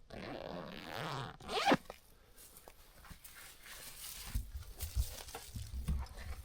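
A zipper being pulled in one quick rising zip about a second and a half in, after a stretch of rustling, followed by scattered low handling thumps.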